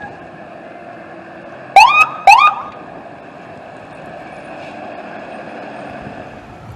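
A fire engine responding with a steady drone, and about two seconds in, two short, very loud siren blasts half a second apart, each sweeping quickly up in pitch and then holding.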